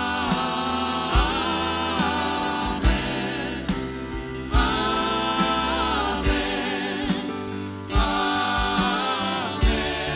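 Church choir and band performing a worship song: voices hold long notes with vibrato over the band, with a heavy drum hit about every one and a half to two seconds.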